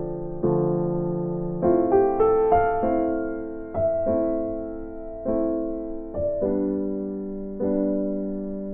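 Background music: a slow, soft electric piano piece, with notes and chords struck about once a second and left to fade.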